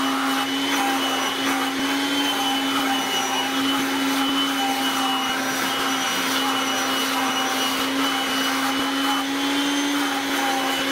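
Vacuum cleaner running steadily, its hose nozzle held against a dog's fur as the dog is vacuumed: a steady hum and a high whine over a rushing hiss.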